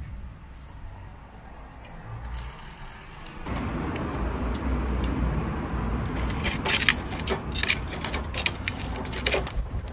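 Charcoal briquettes being handled with metal tongs and set onto a steel grill grate: a string of light clinks and scrapes over a steady rushing noise that gets louder about three and a half seconds in.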